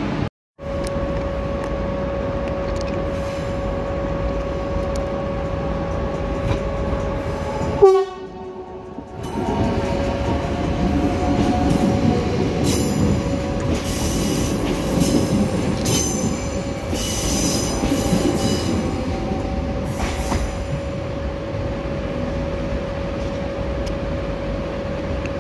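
Electric trains in a station: a commuter electric train passing close along the platform, its wheels rumbling on the rails with a steady high whine. Bursts of high-pitched wheel screech come in the middle. The sound drops out briefly just after the start and again about 8 seconds in.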